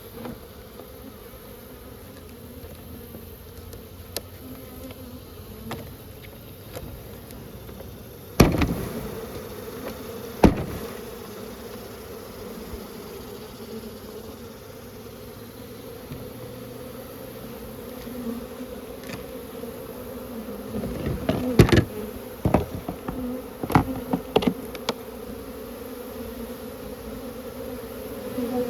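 Many honeybees buzzing in a steady hum. Sharp knocks come twice about 8 and 10 seconds in, then in a quick cluster about 21 to 25 seconds in, as the bees are shaken and knocked into the hive box.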